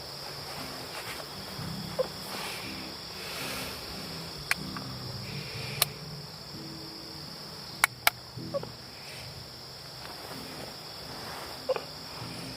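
Night crickets trilling steadily in a high, even band, over faint distant music with low stepped notes. A few sharp clicks and three short chirps stand out.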